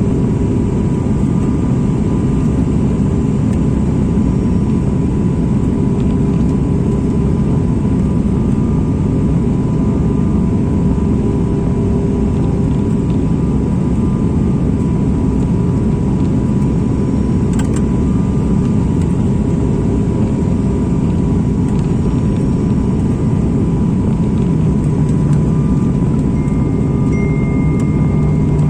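Steady drone of an airliner's engines and airflow heard inside the passenger cabin, with a thin steady high tone running through it.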